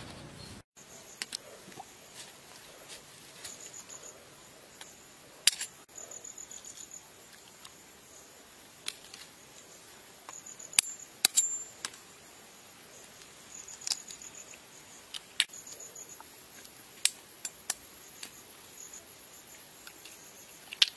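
Insects, crickets by their sound, trilling steadily in high pulsed chirps, with a sharp click or tap every few seconds.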